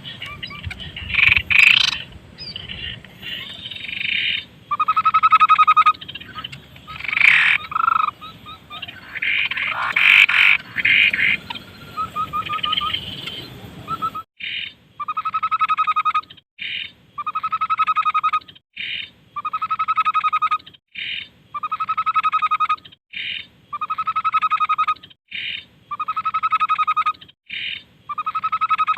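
Tepus babbler singing: for the first half, a busy jumble of varied chirps and calls; from about halfway, a steady repeating cycle of a short high note followed by a rattling, pulsed trill, about once every two seconds.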